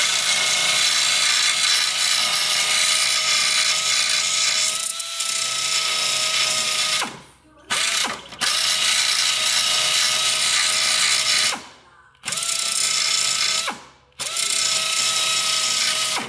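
Narrow belt file sander running against welded sheet steel, grinding back the weld burrs. It runs steadily with a constant whine and hiss, stopping briefly about four times and starting again.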